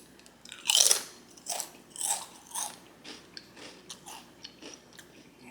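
Potato chips being bitten and chewed close to the microphone: one loud crunch just under a second in, then a run of smaller crisp crunches about every half second, fading.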